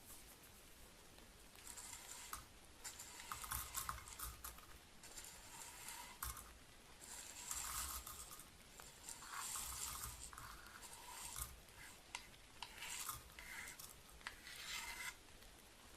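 Dry rolled Tieguanyin oolong tea leaves being tipped and scraped into a porcelain gaiwan, pattering and rustling in a string of short bursts.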